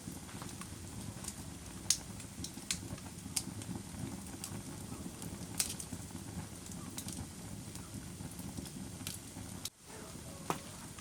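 Wood fire crackling in a fireplace: irregular sharp pops and snaps over a low, steady rumble of burning. The sound drops out for an instant about ten seconds in.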